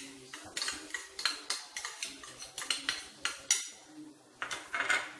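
A metal spoon tapping and scraping against small bowls as chopped onion is scooped out: many quick, irregular clinks, with a denser run of strikes near the end.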